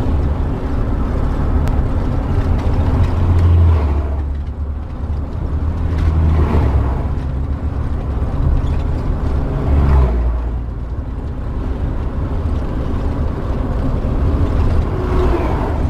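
Motorhome bus engine running steadily while cruising on a straight road, heard from inside the cab as a low hum mixed with road noise.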